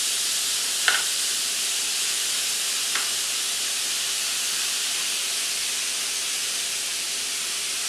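Minced lamb sizzling steadily in a hot frying pan as it is stirred, with two light knocks of the plastic spatula against the pan, about a second in and again near three seconds.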